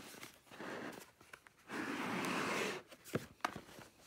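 Cardboard gift box being handled and its inner tray slid open, with paper and fabric packaging rustling, loudest for about a second near the middle, then a couple of light taps.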